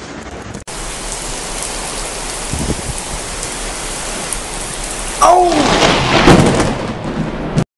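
Steady rain, then about five seconds in a sudden loud thunderclap from a close lightning strike that rumbles on for about two seconds, with a person crying out at the crack.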